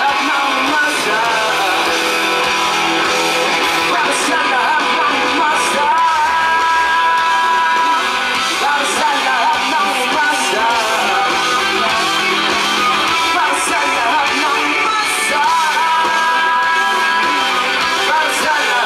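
Live rock band playing a song on electric guitars, bass guitar and drums, with singing over it.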